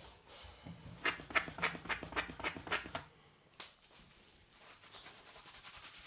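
Shampoo lather being worked by hand: a run of about eight rhythmic rubbing strokes, about four a second, then after a short pause a faster, fainter, steady scrubbing of the foamy scalp.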